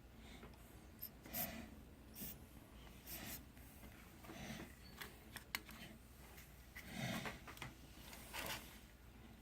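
Faint, scattered handling noises of small-scale work on an Xbox One controller's circuit board during soldering: light taps, rubs and a few sharp clicks of tools against the board, with one distinct click about halfway through.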